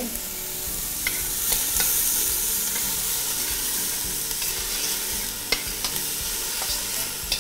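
Chopped onion and garlic sizzling steadily as they fry in a stainless steel pot, stirred with a spoon that clinks sharply against the pot's side now and then.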